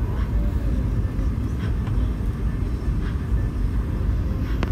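Airbus A320 cabin noise during the landing approach: a steady low rumble of the airliner heard from inside the passenger cabin.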